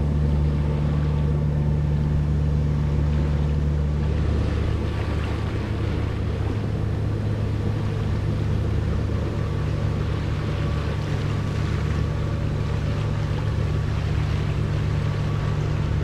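Sailboat's engine running steadily under way, a constant low hum, with water rushing and splashing along the hull.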